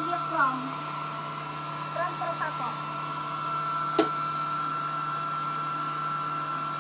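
Handheld hair dryer running steadily with a constant whine while blow-drying a wet dog's coat. A single sharp click sounds about four seconds in.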